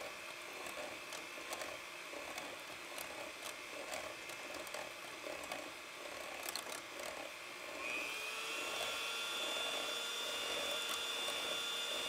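Electric hand mixer running in a metal bowl, whipping heavy cream that is just beginning to form bubbles: a steady motor whir with scattered light ticks. About eight seconds in its pitch rises and it gets louder.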